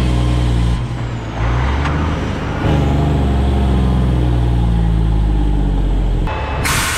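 Diesel engine and exhaust of a Western Star semi truck pulling a loaded lowboy trailer, heard close to the cab. The engine note drops about a second in and comes back strong under load about two seconds later, as with a gear change. Near the end the engine sound stops suddenly and a hiss takes over.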